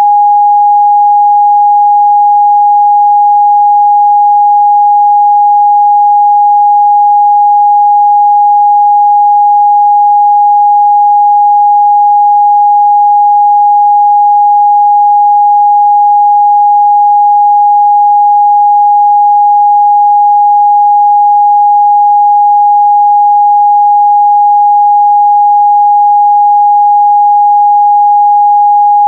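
Steady, loud 824 Hz sine-wave test tone, a single pure pitch held without change.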